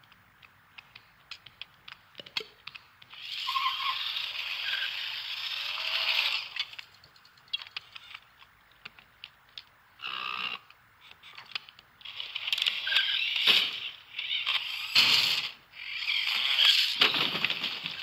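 Film sound-effects track with no dialogue or music: scattered light clicks and ticks, then five bursts of hissing noise lasting from half a second to over three seconds, the loudest near the end.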